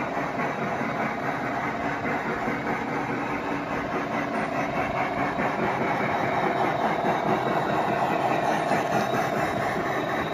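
G scale model steam locomotives and their cars running along the track, a steady rolling, mechanical running noise that grows slightly louder about seven seconds in.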